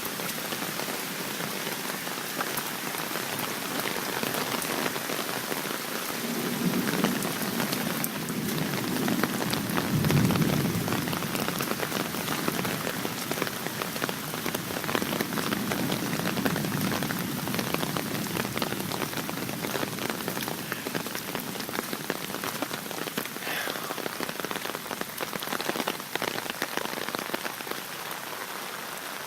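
Steady heavy rain falling, a dense patter of drops, with a low rumble that swells and fades between about six and seventeen seconds in.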